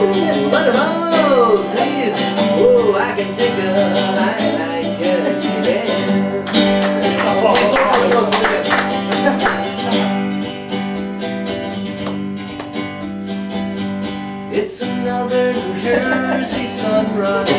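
Solo archtop jazz guitar playing strummed chords and melody. A man's voice vocalises without clear words over it in the first few seconds and again about eight seconds in.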